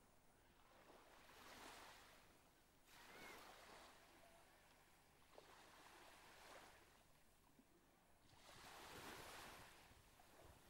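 Faint small lagoon waves washing onto a sandy beach: a soft hiss that swells and fades about four times.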